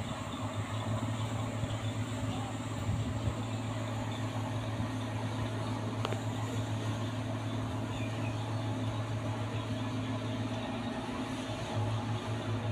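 Ship's engines droning steadily as the vessel maneuvers, a low even hum over a haze of noise, dipping briefly near the end.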